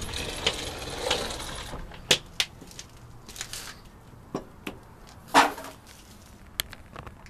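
Scattered knocks and clicks of things being handled on a wooden workbench, about a dozen, the loudest a little past five seconds in.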